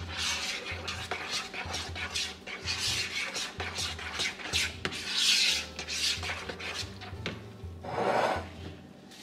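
A metal spoon stirring a thick hair-conditioner mixture in a bowl, scraping the bowl in quick repeated strokes, a few a second. The stirring stops near the end.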